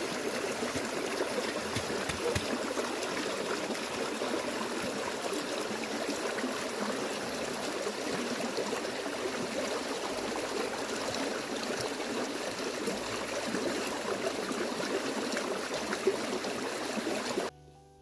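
Stream running steadily, cutting off suddenly near the end.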